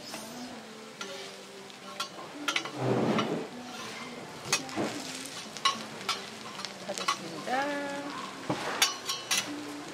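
Shredded-potato pancakes sizzling in oil on a flat steel griddle, with a metal spatula scraping and clicking against the griddle as they are pressed and turned. The loudest scrape comes about three seconds in.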